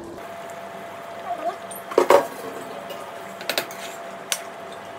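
Cookware clatter: a loud double knock of a plate or lid against the pot about two seconds in, then two lighter clinks, over a faint steady hum. A short faint squeak comes about a second and a half in.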